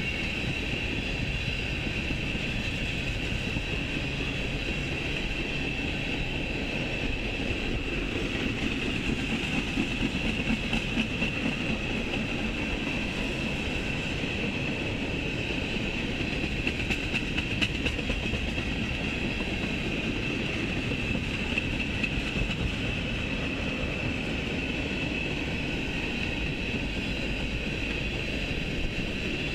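Freight train of tank cars rolling steadily past: a low rumble of wheels on rail with a steady high-pitched ring over it.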